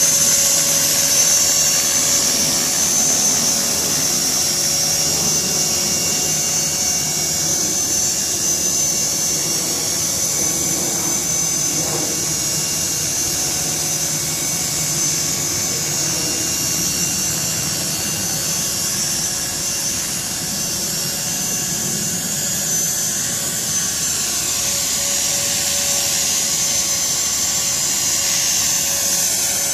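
CopterX 450 electric RC helicopter in flight: a steady high whine from its brushless motor and gears over the buzz of the spinning rotor blades, the pitch shifting slightly near the end.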